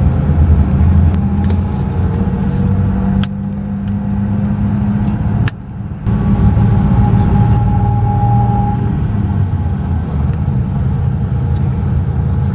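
Steady low rumble of a motor vehicle under way, with a short drop in level about five and a half seconds in and scattered light clicks; the sound cuts off abruptly at the end.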